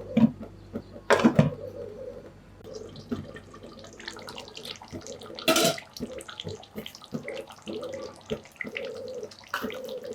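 Water running and splashing, with a couple of sharp clanks of kitchen utensils about a second in and again past the middle.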